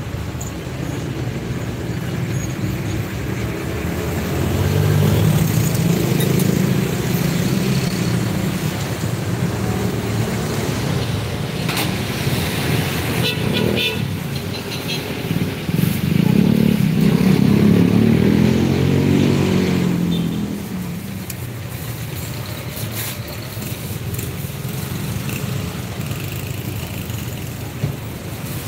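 Street traffic: motor vehicles running and passing, getting louder twice, about four seconds in and again around sixteen to twenty seconds.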